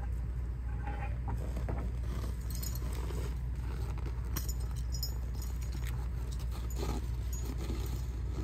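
A logging truck's diesel engine running with a steady low hum, under irregular metallic clinks and jangles.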